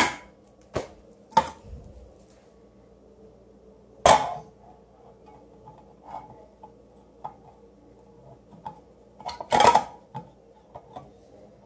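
Steel food cans being handled and stacked, clanking against each other and a hard counter. Several sharp metallic knocks, the loudest about four seconds in and a quick cluster near ten seconds, with lighter clicks between.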